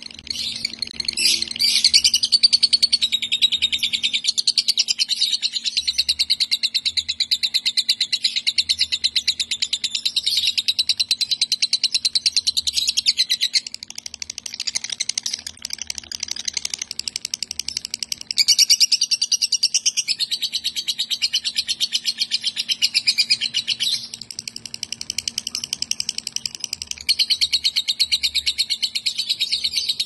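Female lovebird singing a long, very fast chattering trill that runs almost without a break, dipping briefly a few times, its song said to be filled with phrases copied from kapas tembak and cucak jenggot.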